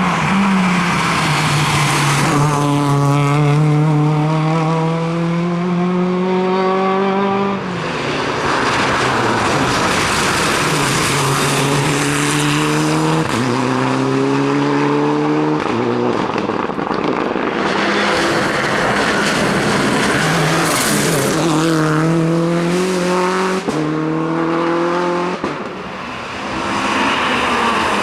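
Rally car engine revving hard as the car accelerates, its pitch climbing and dropping back at each gear change, several times over. Between the climbs there are stretches of loud tyre and road noise.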